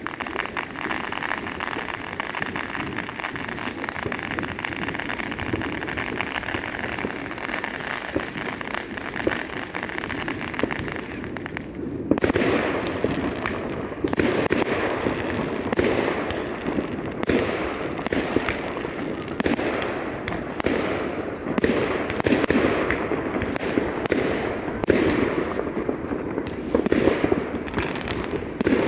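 Fireworks going off in a dense stream of crackles and pops. About twelve seconds in they turn suddenly louder, with bangs following one another rapidly.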